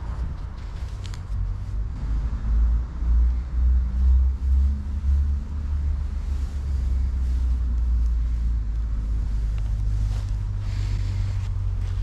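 Low rumble of wind on the microphone of a body-worn camera, swelling in gusts a few seconds in, with faint scuffs and rustles as hands work a string line and stake in sandy ground.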